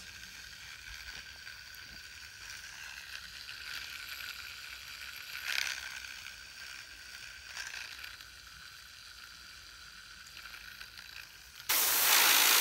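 A fidget spinner held in a spring clamp whirring faintly as it spins, with a couple of brief louder noises in the middle. Near the end a loud, steady hiss of compressed air from an air blow gun starts.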